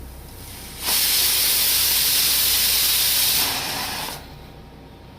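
A loud, steady hiss starting suddenly about a second in, holding for about two and a half seconds, then weakening and stopping about four seconds in.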